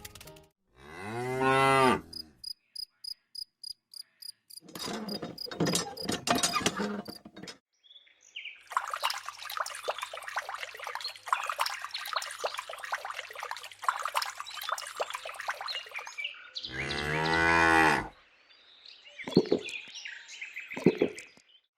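Cows mooing: two long moos, one right at the start and one about 17 seconds in. Between them come a run of quick even clicks, a noisy animal-like stretch and a long high chirring like insects.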